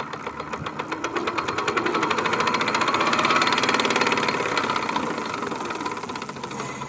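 Electric bike motor running with a fast knocking clatter that swells and then eases off. It is a fault inside the motor that developed after about 6000 km, which the owner could not trace to the brake sensors, throttle or wiring.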